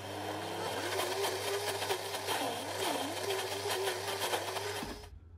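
Countertop blender motor running at speed, blending a thick oat, banana and plant-milk pancake batter. It starts abruptly, its pitch sags briefly twice midway, and it switches off about five seconds in.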